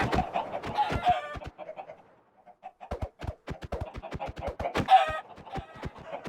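Chickens clucking and squawking, with a loud squawk at the start and another about five seconds in, among many short sharp clicks and taps. There is a brief lull about two seconds in.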